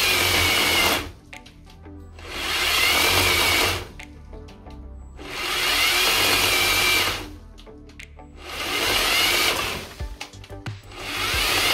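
Cordless electric chainsaw cutting into a branch in repeated bursts of about two seconds, roughly every three seconds; each opens with a rising whine as the motor spins up, then cuts out. The saw keeps stopping itself, put down to its auto-stop with a battery too weak.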